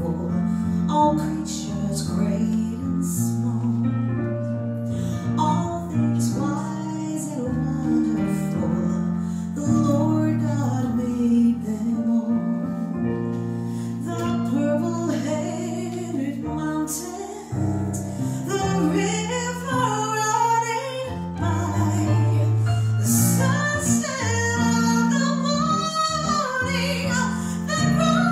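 A woman singing into a microphone, accompanied by chords on a Yamaha CP4 Stage digital piano.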